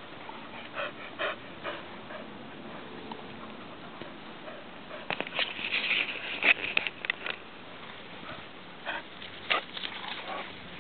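Dogs moving about and sniffing in grass, with a few short squeaky sounds and a flurry of sharp clicks and rattles about halfway through.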